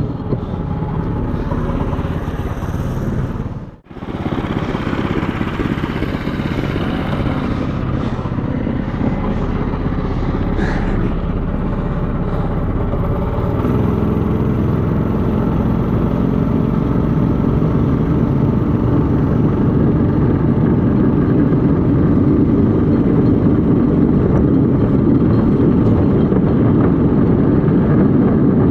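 Small railcart running along the rails, a steady vehicle noise with wind on the microphone. The sound drops out for a moment about four seconds in.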